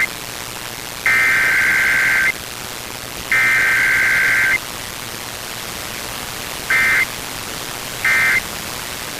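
Emergency Alert System SAME digital data bursts over radio hiss. The last two of the three long header bursts come about a second apart and last a little over a second each. Then, after a gap, two short end-of-message bursts follow near the end.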